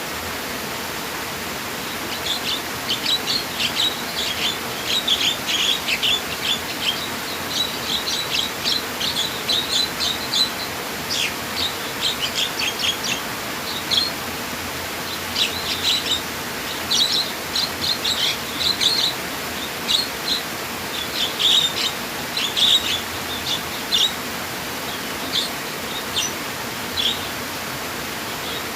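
Small birds chirping in quick, rapid runs of short high notes over a steady hiss of running water; the chirping starts about two seconds in and thins out near the end.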